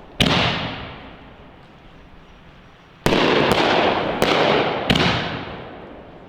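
Aerial firework canister shells bursting: a sharp bang just after the start that fades over about two seconds, then about three seconds in another bang followed by three more sharp reports roughly half a second apart, the breaks of multi-break shells.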